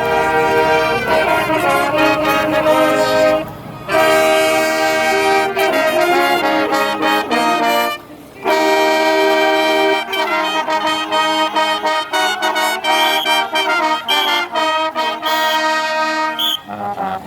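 Marching band brass section playing loud sustained chords, with trumpets and trombones. The chords break off briefly twice, about three and a half and eight seconds in, then continue as shorter, punched notes.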